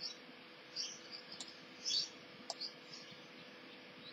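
Faint computer mouse clicks, a handful scattered irregularly, with a few short scratchy blips and a low steady hum beneath.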